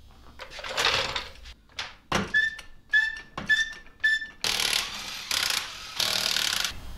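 Metal clanks of a car being jacked up on a floor jack and a wheel being taken off: a few knocks, four short ringing metallic clinks about half a second apart, then a steady hissing rush lasting a couple of seconds.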